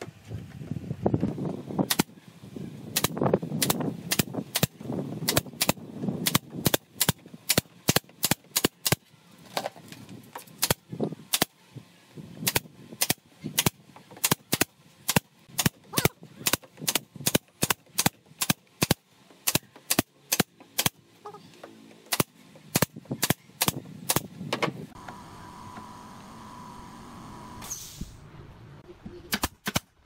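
Pneumatic brad nailer firing nails into pallet-wood boards: sharp snaps, dozens of them in quick irregular runs, with a pause of a few seconds near the end.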